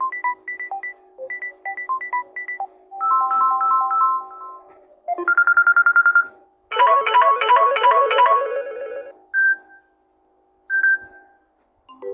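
Samsung tablet ringtones and notification tones playing one after another: short electronic melodies of beeps, each cut off after a second or two. Near the end come two single short chimes.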